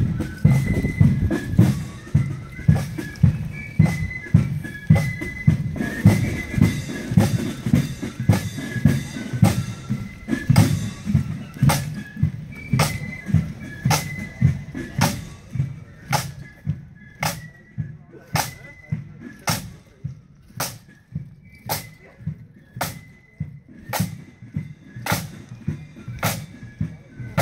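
Marching band playing a march: drum strokes keep a steady marching beat of about one and a half a second under a high melody. The deep drumming and the tune are strongest in the first third; after that mostly sharp drum strokes remain, with the tune coming back now and then.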